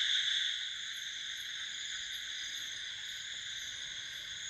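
Dense night chorus of insects such as crickets, a steady shrill drone with a faint high chirp repeating about twice a second. It drops in level about half a second in.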